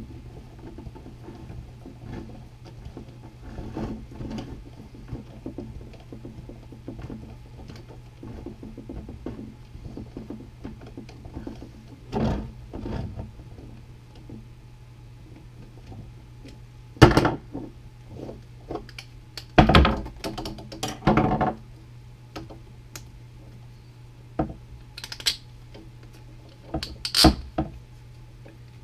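Hands working a snowshoe binding: scattered clicks and rustles of the metal crampon, straps and buckles, with a few louder knocks against the wooden bench. There is a sharp knock a little past halfway, a cluster soon after, and another near the end, over a steady low hum.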